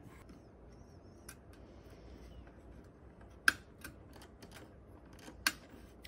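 Hands handling a PC cooling fan and its wire mounting clips while fitting it to a CPU heatsink: a few sharp clicks a second or two apart, the loudest about three and a half seconds in, over quiet rustling.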